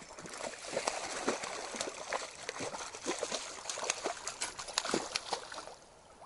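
A hooked lenok (Siberian trout) thrashing at the water's surface: a quick run of sharp splashes that die down near the end.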